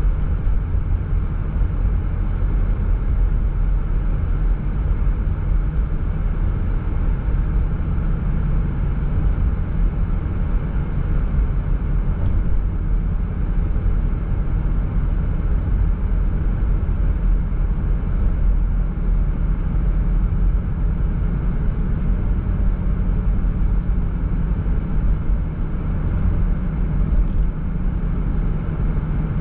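Car driving at a steady speed: a constant low rumble of engine and tyres on the road.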